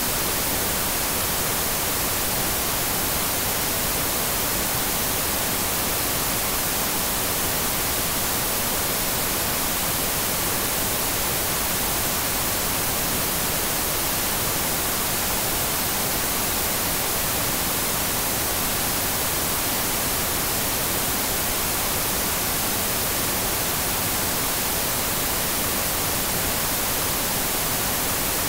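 TV static: a steady, even hiss of white noise, strongest in the high frequencies, with no tone or rhythm in it.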